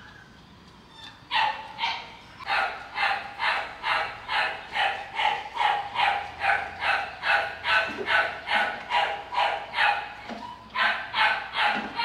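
A dog barking rapidly and over and over, about two to three barks a second, with a short pause near the start and another near the end.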